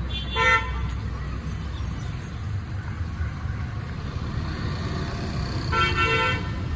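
A vehicle horn beeps briefly, then sounds again for about half a second near the end, over a steady low rumble of street traffic.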